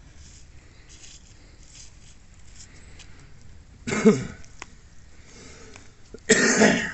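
A man coughing twice, once about four seconds in and again, a little longer, near the end.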